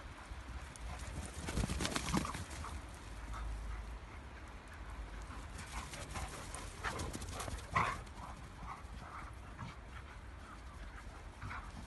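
Dogs playing in snow: scuffling and crunching of paws as they chase each other. The scuffling comes in bursts about two seconds in and again from about six to eight seconds in.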